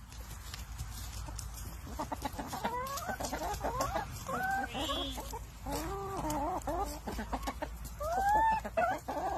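Several hens clucking, with short calls that rise and fall in pitch. The clucking starts about two seconds in and goes on to the end.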